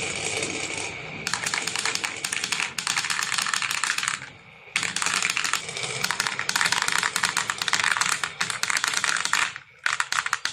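Marbles clattering down a wooden marble run: a dense rattle of rapid clicks that pauses briefly about four seconds in and again near the end.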